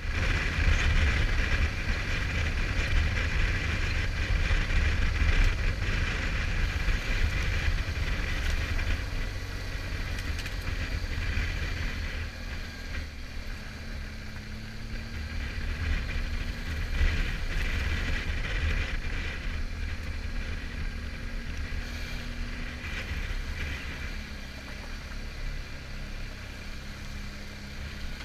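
Wind rushing over a helmet-mounted camera on a moving motorcycle, a steady low buffeting rumble that eases off about halfway through, with the motorcycle's engine running faintly underneath.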